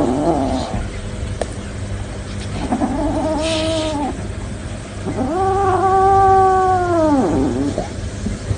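Cornered kitten yowling defensively in three drawn-out calls: a short one at the start, one about three seconds in, and a longer one from about five seconds in that drops in pitch at the end.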